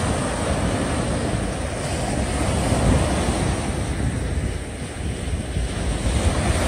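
Wind buffeting the microphone over the wash of sea waves: a steady rumbling noise, dipping slightly about five seconds in.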